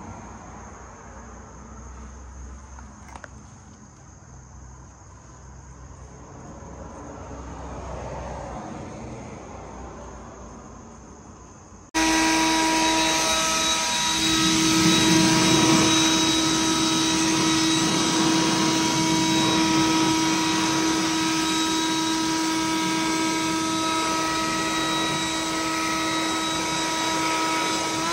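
Quiet background noise, then after a sudden cut a loud, steady motor-driven machine running with a held whine of several tones over a broad rushing noise.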